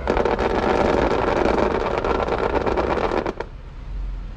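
Jeep Wrangler's engine revving as its tyres spin and scrabble on traction boards and loose dirt for about three seconds, then dropping away; the stuck Jeep does not climb out.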